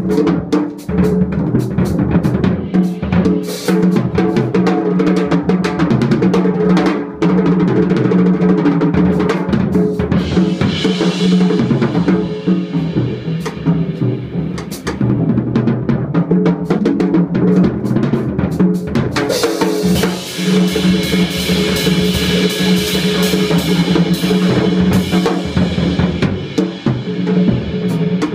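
Free jazz drum kit played busily, with dense strikes on snare, bass drum and rims and cymbal washes about ten seconds in and again from about nineteen seconds. Low sustained pitched notes hold steady underneath.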